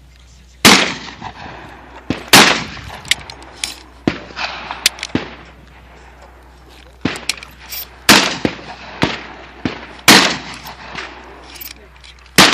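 Gunshots at a shooting range: about five loud reports at uneven intervals, each trailing a short echo. Between them come lighter clicks and clatter of shotgun shells being handled in a plastic ammo box.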